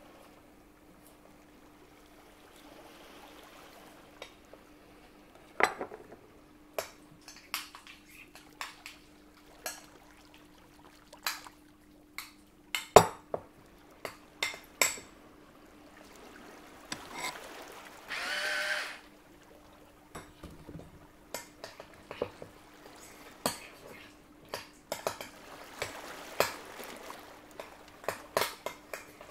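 Kitchen prep sounds: utensils clinking and knocking against bowls and dishes in a string of separate sharp taps, the loudest a little before halfway. About two-thirds of the way through there is a brief pour of liquid, lasting about a second, and a faint steady hum sits underneath.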